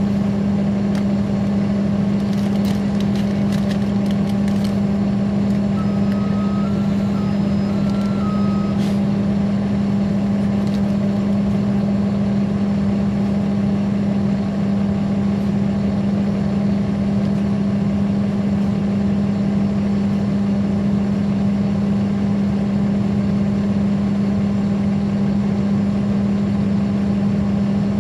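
Caterpillar C13 ACERT inline-six diesel engine of a NABI 416.15 transit bus, heard on board, running at a steady speed with a strong, unchanging drone. About six seconds in, a short two-tone electronic beep sounds, after a few faint clicks.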